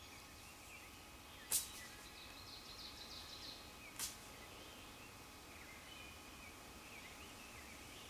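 Woodland songbirds chirping faintly, with a quick high trill about two and a half seconds in. Two sharp clicks stand out, about a second and a half and four seconds in.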